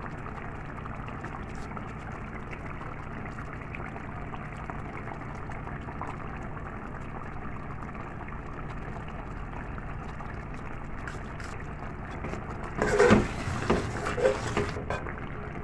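Chicken qorma simmering in oil in a steel pot on a low flame, a steady hiss. About 13 seconds in, a metal spoon stirs and scrapes against the pot for a couple of seconds.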